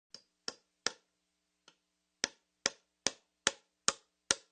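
A series of sharp ticks or knocks at a fairly even pace, about two to three a second, with a pause about a second in, getting louder towards the end.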